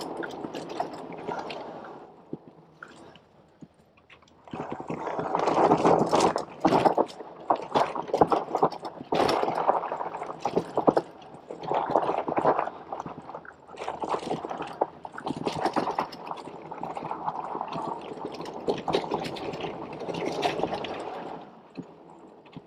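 Riding noise from a HAOQI Cheetah full-suspension e-bike on a dirt mountain-bike trail: tyres crunching over the ground with clicks and rattles, coming in uneven surges. There is a quieter stretch a couple of seconds in.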